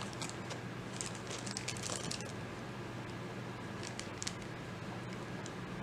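Faint light clicks and rustles of small earrings with wire hooks being handled and separated by hand, over a steady low hum of room noise.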